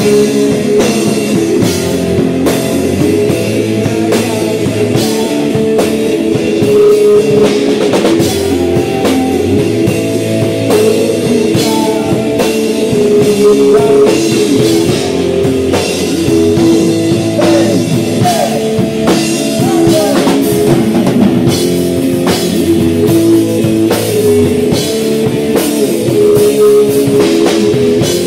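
Live rock band playing loud and without a break: electric guitars, bass guitar and a drum kit.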